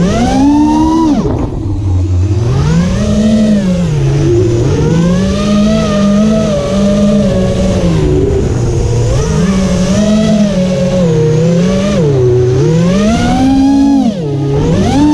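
Electric motors and propellers of a self-built FPV freestyle quadcopter, heard from the GoPro riding on it: a steady buzzing whine that swings up and down in pitch again and again as the throttle is pushed and eased, dipping lowest about two seconds in and again near the end.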